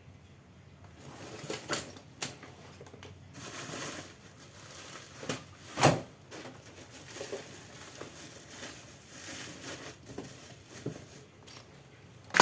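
Handling noises from hands working with parts: scattered clicks and knocks with some rustling, and one sharper knock about six seconds in.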